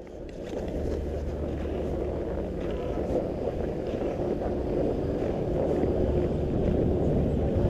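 Wind noise buffeting an action camera's microphone as the rider glides down a groomed ski run. It is a steady low rumble that builds over the first second.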